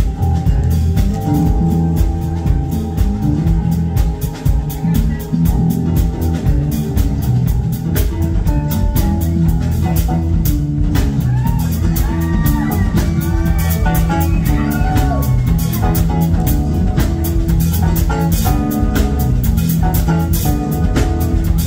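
A live smooth-jazz band plays with acoustic guitars, bass guitar, keyboards and a drum kit over a steady beat. Partway through, a melody line has sliding notes.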